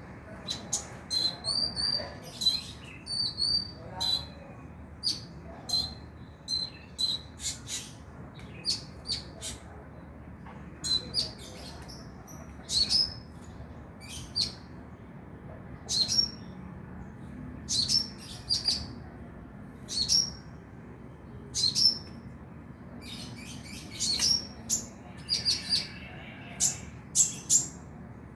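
Konin (kolibri ninja sunbird) chirping: short, sharp, high notes, some single and some in quick runs of several, at an irregular pace with a low steady hum behind.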